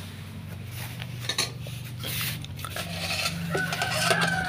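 Metal spoon scraping and tapping against a steel plate as cooked rice is dished out, a scatter of light clinks and clicks.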